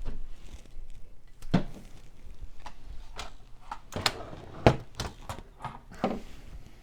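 Computer parts being handled and set down on a table: a series of sharp knocks and clicks, about half a dozen, the loudest a little over 4.5 seconds in.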